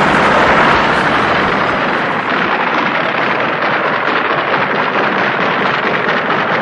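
Military jet aircraft roar: a loud, steady rushing noise that is strongest in the first couple of seconds and then eases slightly.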